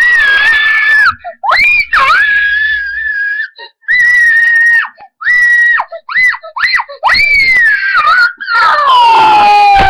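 A child's high-pitched screaming: a run of long, loud shrieks held at one pitch with short breaks between them. Near the end a scream slides down in pitch and is then held steady at the lower pitch.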